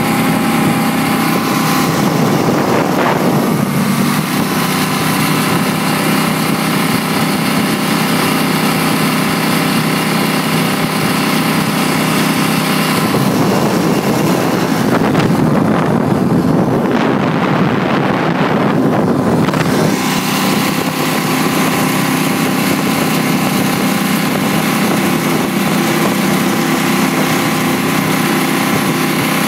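Supercharged jet boat engine running hard and steady at speed, with rushing water spray and wind. About 13 s in the sound turns rougher and noisier for several seconds before the even engine tone returns.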